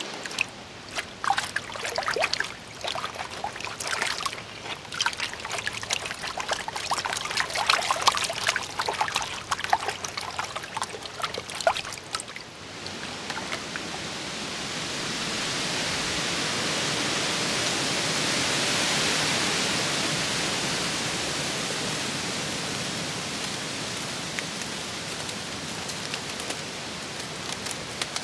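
Hands splashing and scrubbing rocks in a shallow creek pool, a run of small splashes and clatters. About halfway through, a strong gust of wind blows through the trees, swelling to a peak and slowly dying away.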